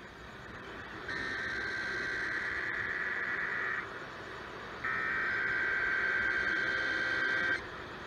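EAS (SAME) header data bursts received on an AM radio: two bursts of a buzzy two-tone warble, each nearly three seconds long, about a second apart. They are the digital header that opens a Required Monthly Test.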